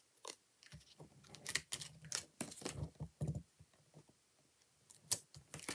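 Light scattered clicks and paper rustles of small crafting work: backing being flicked off foam adhesive dimensionals with a pick tool and die-cut paper pieces pressed onto a card, then a single sharper click about five seconds in.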